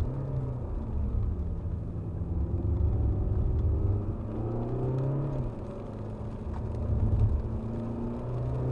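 Alfa Romeo Giulia Veloce Q4's 2.2-litre four-cylinder turbodiesel, heard from inside the cabin, pulling hard through the gears on a race track. Its pitch climbs for the first few seconds, drops back about halfway through, climbs again and drops near the end as the driver accelerates and lifts between bends.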